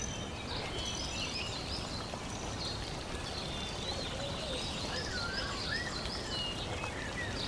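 Nature ambience: several birds chirping and warbling in short repeated phrases over a steady hiss.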